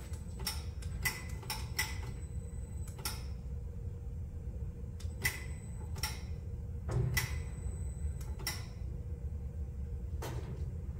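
About a dozen sharp, irregular clicks and light knocks over a steady low hum.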